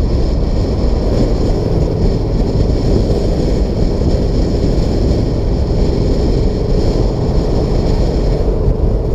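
Loud wind rushing over the camera microphone on a motorcycle at freeway speed, with a 2017 Triumph Street Twin's 900 cc parallel-twin engine running steadily underneath, its tone coming through more plainly near the end.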